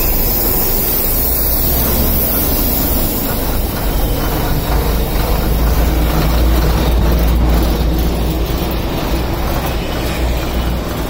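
Steady, loud vehicle noise with a deep low rumble from heavy traffic and engines.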